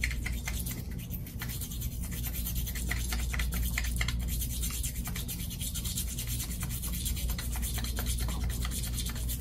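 A thin cell cleaning brush scrubbing up and down inside the glass sample tube of an oil content meter's measuring cell: a quick, steady, scratchy rubbing, over a low steady hum.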